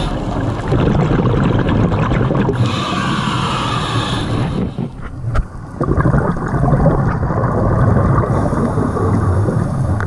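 Muffled underwater noise picked up through a camera's waterproof housing while scuba diving: a steady rumble and hiss, dipping briefly about halfway through.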